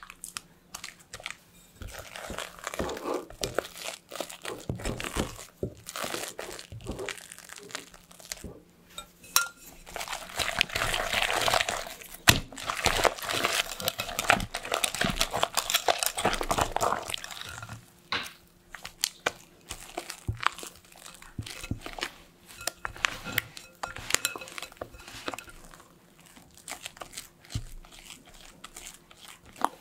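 A spatula stirs and folds thick custard cream in a glass bowl, with wet squelching and scraping against the glass. Through the middle stretch, whipped cream is whisked into the custard with a busier run of strokes.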